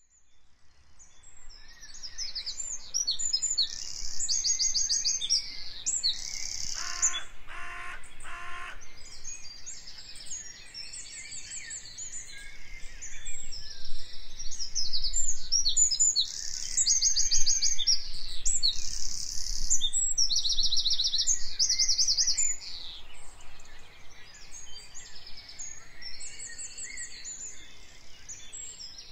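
Birdsong ambience: several small birds chirping and singing rapid, high trills, with three short, lower calls about seven seconds in.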